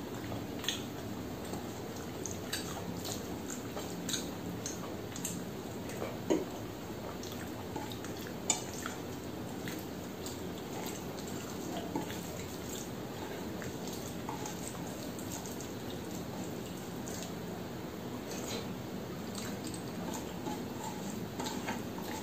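Hand-eating sounds: fingers mixing rice and dal on a steel plate, with wet chewing and mouth clicks. Scattered short clicks and taps, the loudest about six and eight and a half seconds in, over a steady low background noise.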